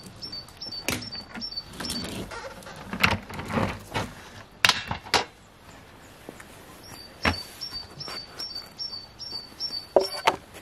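Knocks and clatter of a home-made vacuum separator being handled and opened, the sharpest knocks about a second in, around three to five seconds in, about seven seconds in and near the end. Two runs of short, evenly repeated high chirps, a few a second, sound over the handling near the start and again from about seven seconds in.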